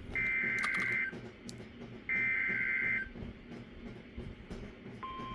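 Emergency Alert System SAME header: two roughly one-second bursts of warbling, high-pitched digital data tones about a second apart. Near the end the steady NOAA Weather Radio 1050 Hz warning alarm tone begins, signalling that a warning message follows.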